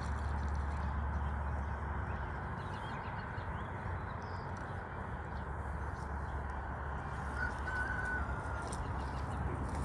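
Steady outdoor background noise with a low rumble, and one short faint bird call about seven and a half seconds in.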